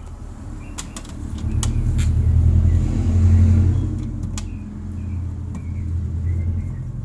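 A motor vehicle's engine rumbling as it passes, swelling to loudest about three seconds in and then fading, with a few sharp clicks over it.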